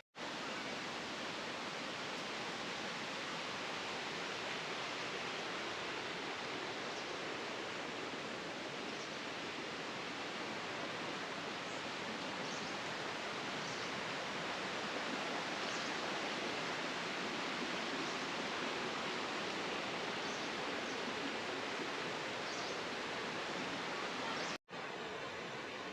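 Waterfall stream water rushing over rocks, a steady even rush. It cuts off abruptly near the end, leaving a quieter hiss.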